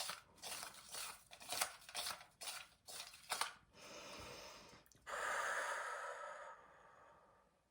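Hands shuffling the paper name entries for a draw: a run of quick crisp papery swishes, about two or three a second, then a longer steady rustling hiss that fades away near the end.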